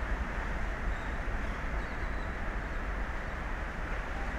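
Steady rushing wind over open sea, with a low rumble from the wind buffeting the microphone.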